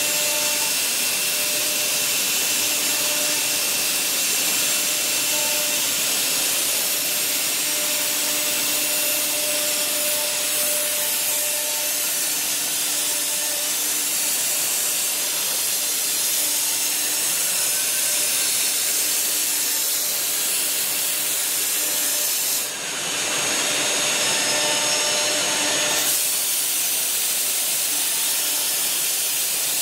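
Spindle of a BCAM BCM2030S four-spindle CNC router running at speed while its bit engraves an outline into plywood: a steady, even hiss with faint steady tones. About three quarters of the way through it dips briefly and changes character for about three seconds.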